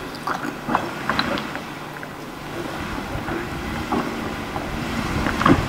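2015 Jeep Wrangler JK's 3.6-litre V6 running at low revs as it crawls slowly over rocks, a steady low rumble, with wind on the microphone.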